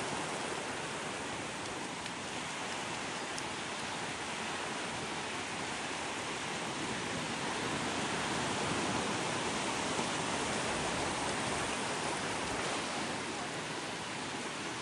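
Sea surf washing onto a beach: a steady rush of breaking waves that swells slightly about two-thirds of the way through.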